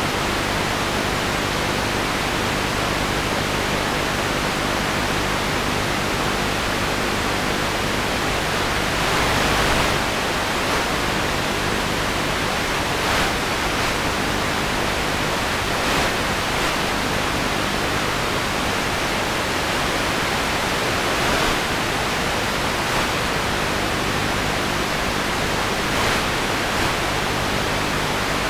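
Steady static hiss from a spy camera's audio feed, too fuzzy to carry any real sound, with a faint low hum under it and brief louder surges of hiss every few seconds.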